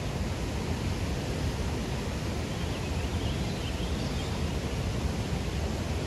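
Waterfall: falling water rushing steadily, a dense even roar strongest in the low range.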